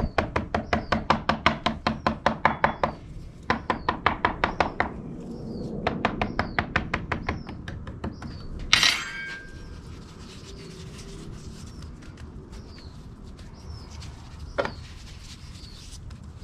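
A fork pricking (docking) rolled-out pizza dough on a wooden cutting board: quick runs of taps, about six a second, in three bursts that stop about eight seconds in. A single sharp clack follows about nine seconds in.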